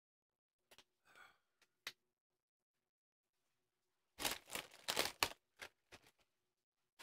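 Faint handling noise: a few scattered clicks, then a dense burst of crackling and clicking lasting about a second just past the middle, and a few more single clicks after it.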